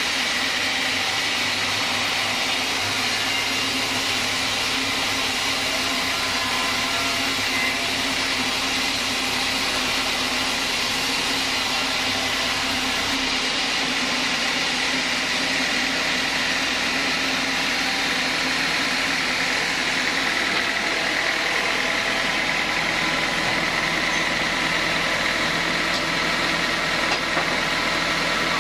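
Large log band sawmill running steadily, its motor and blade giving a continuous hum and whine over a hiss. A low rumble under it drops away about halfway through.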